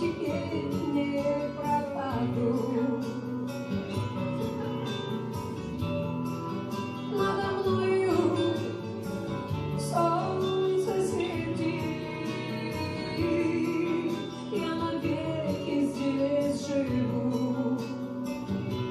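A woman singing a Gypsy-style song live into a microphone, with sliding, held notes, over a recorded backing track with guitar.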